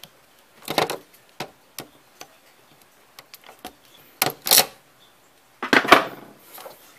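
Pliers clicking and rattling against parts inside the monitor's plastic case: three short clusters of clatter, about a second in, just past four seconds and near six seconds, with light ticks between.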